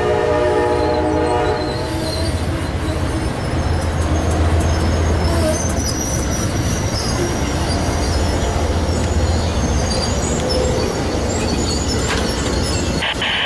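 Amtrak passenger train's horn, held and cutting off about two seconds in. Then the passenger cars roll past with a steady low rumble of wheels on rail and a faint high wheel squeal.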